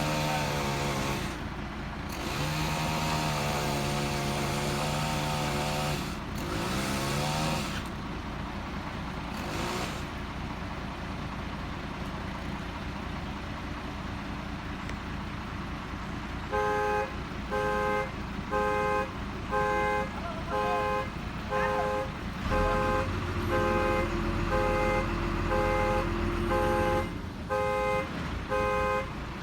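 A vehicle engine running with its pitch shifting over the first several seconds, then from about halfway through a back-up alarm beeping steadily, a bit more than once a second, with a deep engine rumble rising under it for a few seconds.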